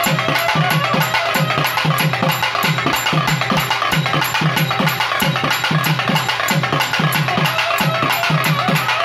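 Loud, fast percussion music: rapid sharp drum strokes over deep drum beats that fall about three times a second, in an unbroken steady rhythm.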